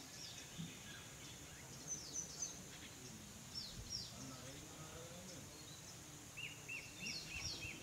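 Faint outdoor birdsong: short high chirps sliding downward, often in pairs, then near the end a quick run of short repeated calls at about four a second. A steady high insect hiss runs underneath.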